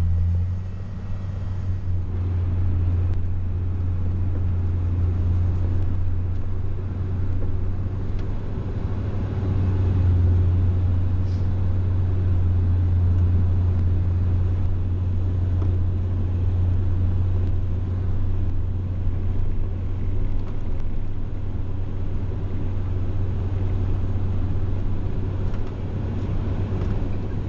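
Snowcat's diesel engine running steadily, a deep drone heard from inside the cab as the machine pushes snow with its front blade.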